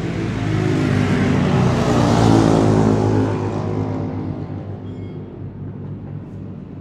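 Two-stroke racing motorcycle engine running, swelling to a peak about two and a half seconds in and then fading away.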